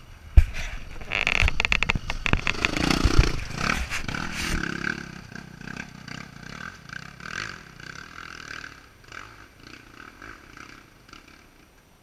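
Dirt bike engine revving hard on a rocky climb, with knocks and clatter of the bike hitting rocks in the first few seconds, then the engine note fading down toward the end.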